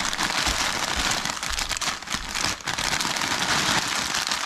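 Plastic bag of fine dry egg noodles crinkling as the noodles are squeezed and crumbled by hand into a pot, a dense crackle of many small snaps.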